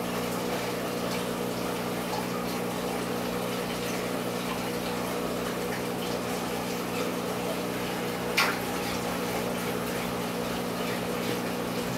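Large aquarium's filtration running: a steady pump hum under the even rush of moving water. About eight seconds in comes a single brief sharp sound.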